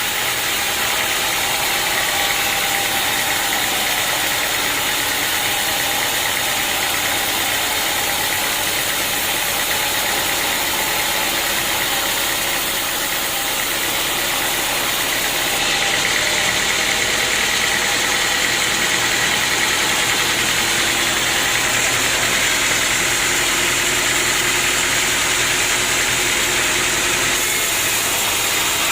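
Sawmill machinery running steadily, a loud continuous mechanical drone with steady whining tones. The sound shifts slightly about halfway through.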